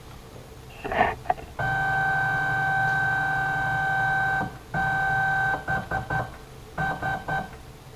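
Closed-loop NEMA 23 stepper motor of a CNC mini mill whining steadily as an axis is jogged. One held tone runs about three seconds, then after a short break a second, shorter one, followed by several brief blips.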